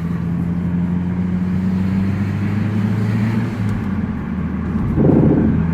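A 2009 Mazdaspeed3's turbocharged 2.3-litre four-cylinder running while driving, a steady drone with no knock, freshly fitted with new spark plugs. The note changes about three and a half seconds in, and a short louder rush comes about five seconds in.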